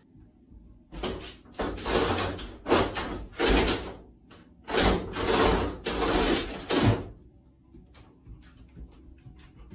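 A closed wooden interior door rattling and banging in its frame in a run of about eight noisy bursts over some six seconds, as a dog on the other side paws at it to get it open.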